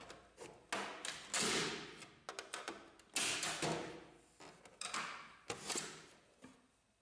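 Plastic side panel of an HP Laser printer being pried off with a screwdriver: a string of sharp clicks and snaps as its retaining tabs release. The loudest snaps come about one and a half and three seconds in.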